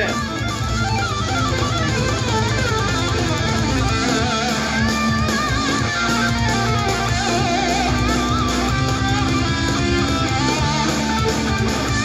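Rock music with electric guitar playing through a Soundcore Boom 2 Bluetooth boombox speaker set to 80% volume, at a steady level.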